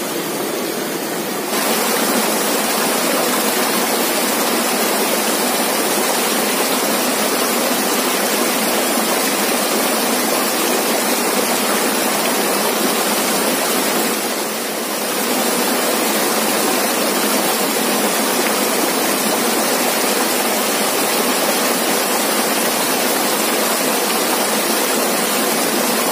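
Small waterfall and shallow rocky stream rushing steadily, growing louder about a second and a half in.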